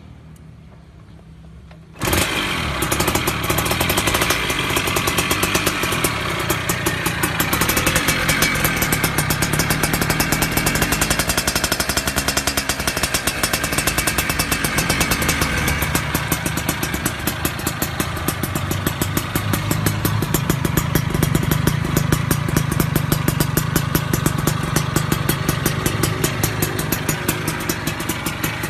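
A two-stroke underbone motorcycle with an AHM Malaysia racing expansion-chamber exhaust starts about two seconds in. It then runs steadily with a rapid pulsing exhaust note.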